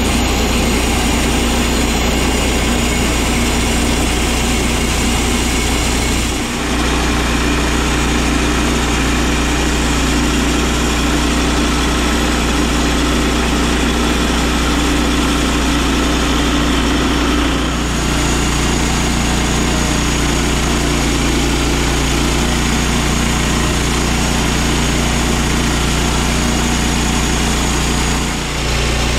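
Gas-engine portable band sawmill running steadily under load as its band blade cuts lengthwise through a pine log, with a few brief dips in the engine note.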